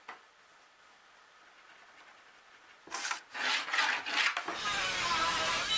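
Plywood being worked by hand: after about three seconds of near silence, a few short rasping strokes on wood, then a steady rough rubbing noise from about four and a half seconds in.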